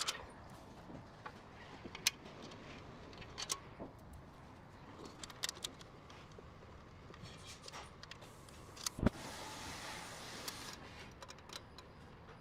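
Scattered metallic clicks and clinks of bolts, washers and hand tools as a steel bumper wing is fitted, with one sharp knock about nine seconds in followed by a short hiss.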